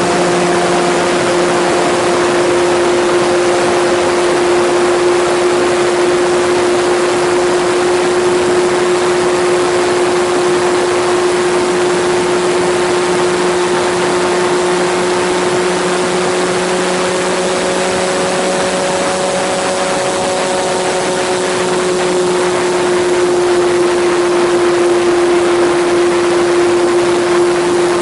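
Onboard sound of an E-flite RC airplane in flight: its electric motor and propeller make a steady hum, with loud wind rushing over the airframe. The pitch lifts slightly about two-thirds of the way in, then settles.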